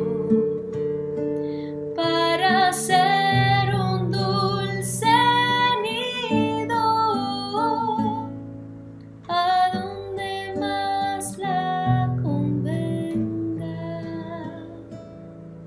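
A woman singing a slow Spanish-language love song, accompanied by a classical nylon-string guitar. There are two sung phrases, the second ending about thirteen seconds in, and then the guitar plays on alone.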